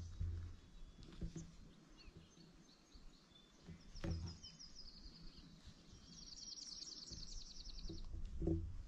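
A songbird singing fast, high trills of rapidly repeated notes: a short trill about four seconds in and a longer one of about two seconds starting around six seconds in, with a few faint chirps between. A few dull low thumps, the loudest about four seconds in and near the end.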